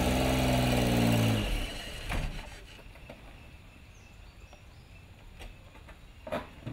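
A vehicle engine running at a steady pitch for about a second and a half, then fading away, leaving a quiet outdoor background with a few faint clicks.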